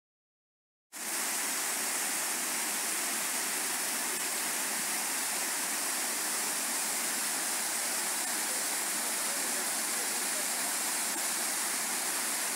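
Water cascading over a small stepped rock waterfall: a steady, even rushing hiss that starts abruptly about a second in.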